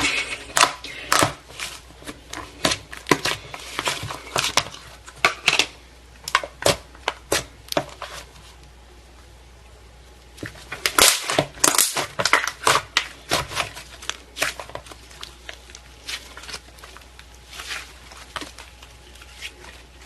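Slime being squeezed and pressed by hand, giving irregular sharp popping and crackling clicks, with a pause of a couple of seconds near the middle.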